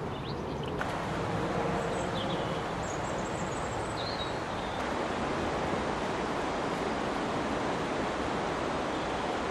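A steady rushing noise, like wind or moving water, with a few faint high chirps about two to four seconds in.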